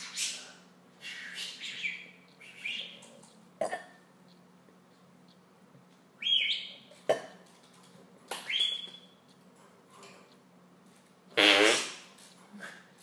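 Fart noises with a pet budgerigar's chirps and whistled calls in between. The calls are two sweeping whistles about midway. The loudest sound, a long fart-like rasp with a low rippling buzz, comes near the end.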